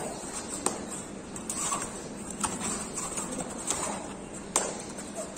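Kabaddi players moving on a foam mat indoors: a few sharp slaps and footfalls, about five in all, over a faint murmur of voices.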